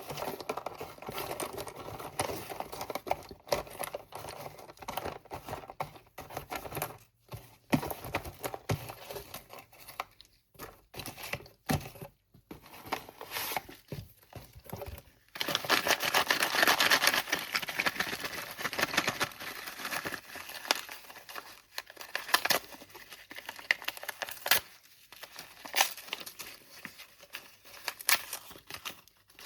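Packaging of slate pencils being handled, crinkled and torn open: a run of irregular small crinkles and crackles, denser and louder for a few seconds about halfway through.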